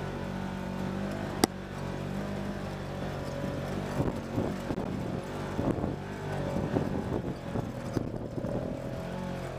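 Polaris RZR side-by-side engine running under load up a rutted dirt trail, its pitch wavering with the throttle. From about four seconds in, the machine knocks and rattles over the ruts, and there is one sharp click a little over a second in.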